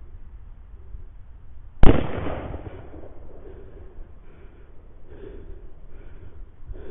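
A single rifle shot about two seconds in, very loud and sharp, with its echo dying away over about a second, picked up by the thermal scope's built-in recording microphone.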